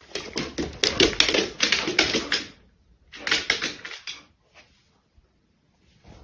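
Rapid dry clicking and scratching in two bursts: one lasting about two and a half seconds, then after a short pause a second of about a second.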